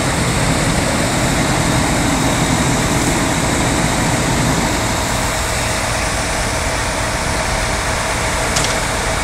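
Diesel engines of parked fire engines running steadily, a constant rumble that eases a little about halfway through.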